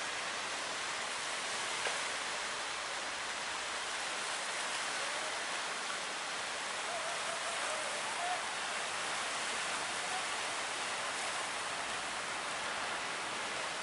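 Steady hiss of surf and rushing water.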